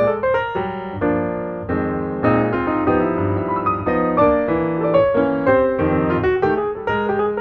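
Background piano music, a quick run of notes over held chords.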